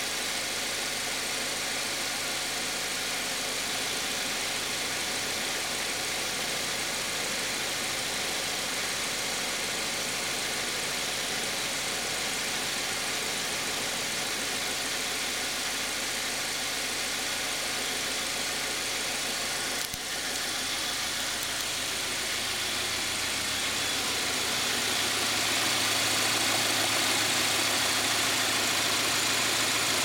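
2021 Subaru Crosstrek's 2.5-litre FB25D flat-four boxer engine idling steadily at its normal warm idle speed, the cold fast idle already over, heard with the hood open. It grows somewhat louder over the last several seconds.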